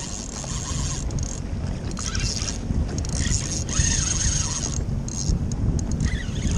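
Wind rushing over the microphone and water splashing as a hooked striped bass thrashes at the surface beside the personal watercraft.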